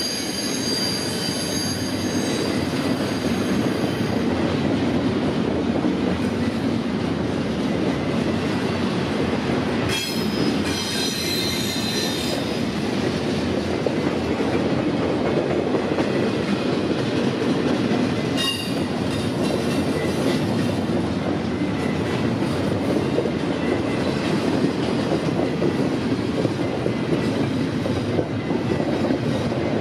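Freight train cars rolling past in a steady rumble, with high-pitched steel wheel squeal coming and going, strongest at the start and again around ten seconds in.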